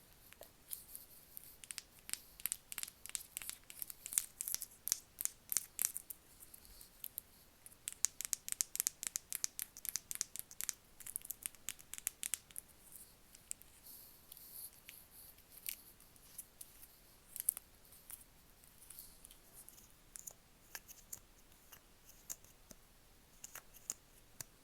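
ASMR tapping: quick, crisp taps and clicks on objects, in fast runs of several taps a second for the first half, thinning to scattered single taps later.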